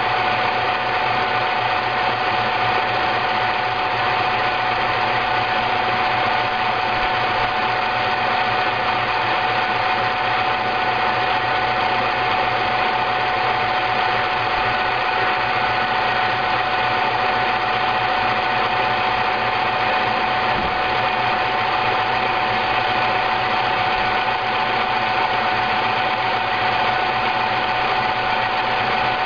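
Froth Au Lait automatic milk frother running: its motor spins the whisk with a steady mechanical whir and a constant high hum that does not change.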